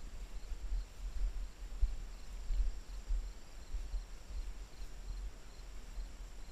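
Low, uneven rumble on a body-worn camera's microphone as it moves with the walking handler, with faint, evenly spaced insect chirps above it.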